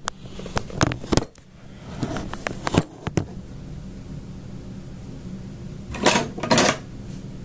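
A string of light clicks and knocks from handling a portable weather radio and plugging in its AC adapter, then two short rustling scrapes about six seconds in, over a steady low hum.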